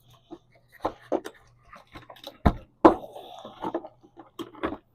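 Cardboard box and packaging being handled and pulled apart: irregular rustles, scrapes and clicks, with two louder knocks about two and a half and three seconds in.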